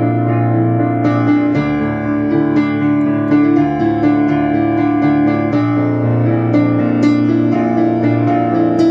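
Yamaha digital piano played solo: a steady stream of repeated chords over a bass line, with no voice.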